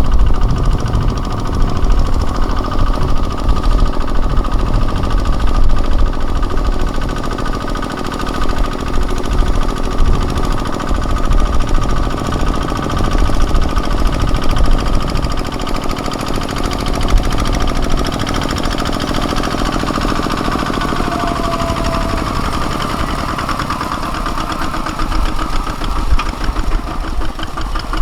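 A mini tractor's Kubota ZT155 single-cylinder diesel engine running steadily with a knocking beat while ploughing.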